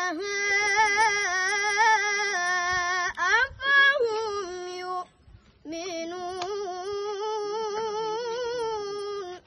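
A boy's voice reciting the Quran in melodic chant (tilawah), with long held, ornamented notes. There is a short pause for breath about five seconds in, then a second long phrase.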